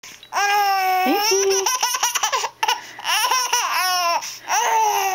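Baby laughing hard: a long high-pitched squeal about half a second in, then runs of short choppy laughs, and another long squeal near the end.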